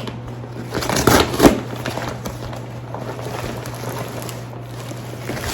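Rustling and handling of packaging with a few clicks and a knock about a second and a half in, then quieter handling noise over a steady low hum.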